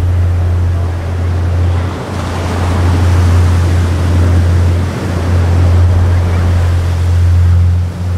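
Fighter jet engine roar at an air show: a loud, steady low rumble that dips briefly a few times.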